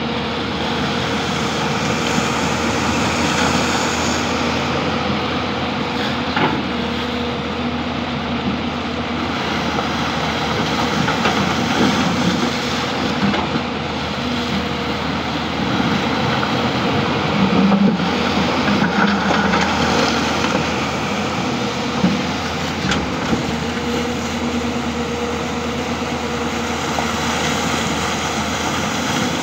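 Hyundai R220-9S hydraulic excavator's diesel engine running steadily under load while its bucket digs through a shallow rocky riverbed, with water churning and splashing around the bucket and a few knocks of stone against the steel.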